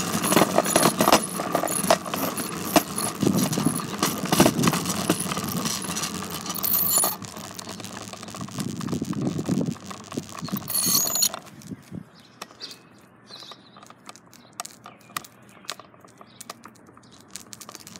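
A bicycle rattling and clicking as it is ridden. The rattle is busy for the first seven seconds or so, then fainter with only scattered clicks.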